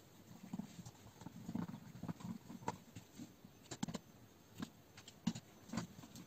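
Screwdriver turning a screw through an RC buggy's aluminium chassis plate into a plastic suspension mount. Irregular small clicks and soft knocks come from the tool and parts being handled, with several sharper ticks in the second half.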